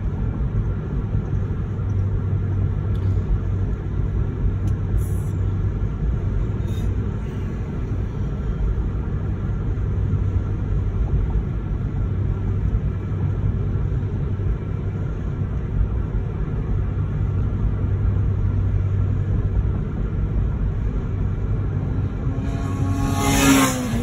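Steady low rumble of a car, heard from inside the cabin. Near the end comes a brief louder sound that falls in pitch.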